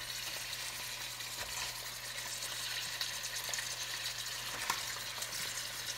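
Wild salmon pieces sizzling in a hot stainless steel skillet: a steady frying hiss with a few faint pops.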